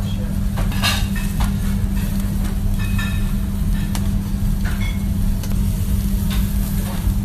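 A steady low machine hum with a few scattered light clicks and clinks.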